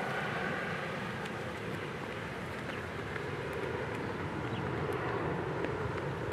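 Steady jet engine noise from a twin-engine Boeing 757 moving away down the runway, heard at a distance.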